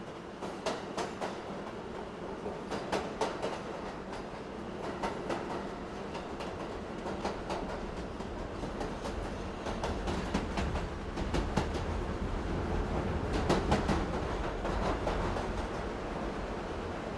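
Subway car in motion: a steady rumble of the train on the track, with clickety-clack as the wheels cross rail joints in pairs of clicks every couple of seconds. The low rumble grows louder past the middle.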